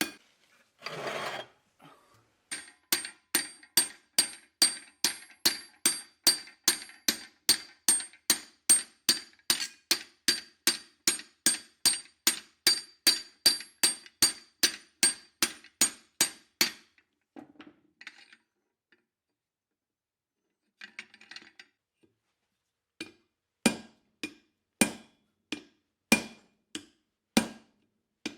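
Blacksmith's hammer striking hot steel bar on an anvil, each blow ringing: a fast steady run of about three blows a second for some fourteen seconds, then after a pause slower blows about one a second. A short rasping noise comes about a second in.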